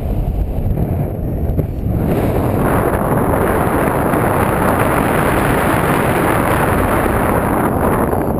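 Airflow buffeting the camera's microphone in paraglider flight, a steady rushing wind noise that grows louder and brighter about two seconds in.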